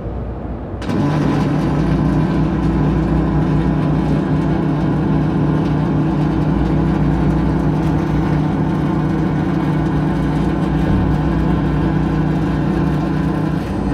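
Robotic pulse MIG welding arc on galvanized steel sheet. A steady, loud buzz starts abruptly about a second in, as the arc strikes, and holds unchanged until it cuts off near the end.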